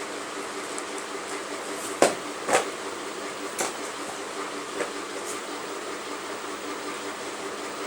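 Steady mechanical hum of room ventilation, with about five short taps or clicks scattered between two and five seconds in.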